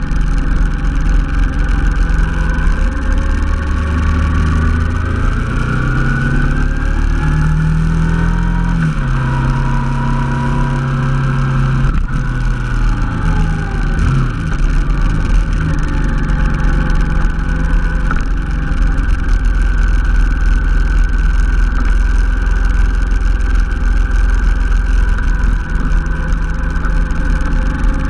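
Honda NT700V Deauville's V-twin engine running under way, its pitch rising and then shifting in the middle as speed and gears change, before settling into a steady cruise.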